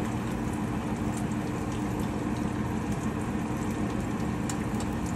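Spam slices sizzling steadily in a frying pan, with a steady low hum underneath.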